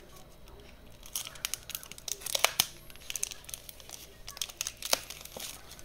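Cardboard and plastic blister packaging of a Pokémon card booster set being pulled and torn open. About a second in comes a dense run of crinkles, crackles and sharp snaps that lasts several seconds.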